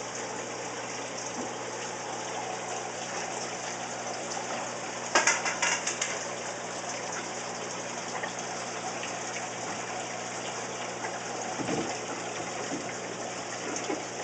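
Water rushing steadily into aquarium tanks of a saltwater system as they are filled, over a steady low pump hum. A brief louder burst of noise comes about five seconds in.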